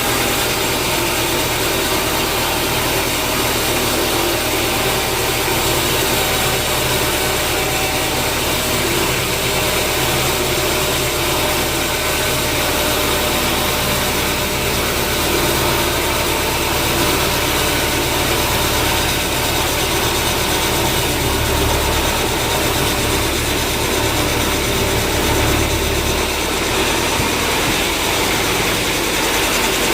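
Sawmill machinery running steadily: a loud, even mechanical drone with a constant low hum and a noisy hiss over it.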